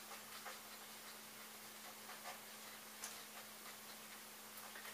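Faint, scattered clicks and taps of small parts being handled as a fitting is screwed onto the underside of a 3D printer's bed, over a steady low electrical hum.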